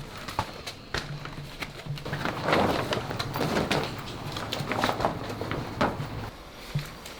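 Irregular clicks, knocks and short scraping and rustling sounds of plastic panels and parts being handled and unfastened as an air conditioner is taken apart, over a faint low hum.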